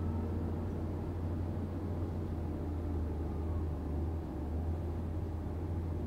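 Steady low rumble of wind on the microphone, mixed with vehicle running and road noise while moving along a road.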